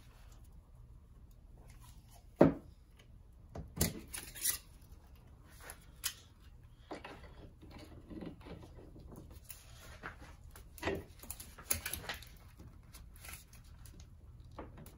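A handful of sharp clicks and knocks as parts of a mountain-bike rear shock are handled during reassembly; the loudest comes about two and a half seconds in.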